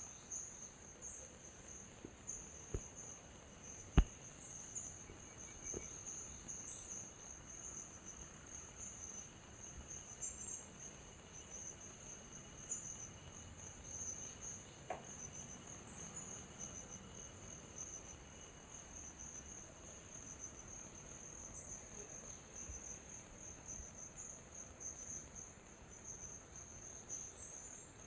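Steady high-pitched chirring of an insect chorus, with a few sharp clicks, the loudest about four seconds in.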